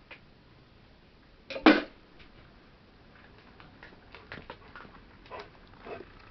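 A single loud thump about a second and a half in, then faint scattered rustles and clicks, as a cat moves right up against a camera sitting among sacks.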